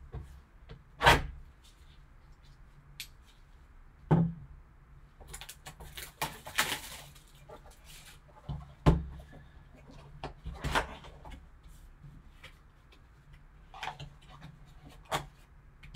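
Cardboard trading-card hobby box being slit open and handled on a table: scattered knocks and taps, a rustle of wrapping about six to seven seconds in, and the box lid being lifted.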